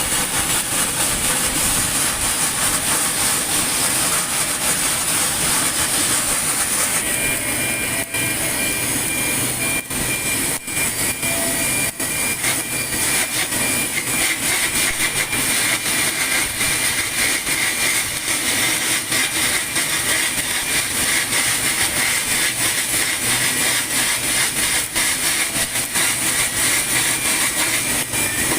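Automatic pipeline welding: a steady arc hiss with dense crackling all through, and a thin high whine joining about seven seconds in.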